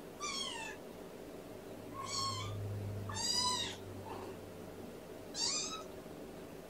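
A three-week-old kitten meowing four times in short, high, falling calls, the third the loudest. It is calling for attention rather than from hunger, having been fed and nursed a few hours before.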